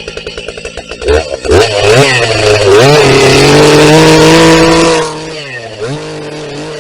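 Husqvarna 380 CD two-stroke chainsaw ticking over at idle, then blipped up in a few quick revs about a second in and held at high revs for about two seconds. It drops back to idle near five seconds, with one more short blip after.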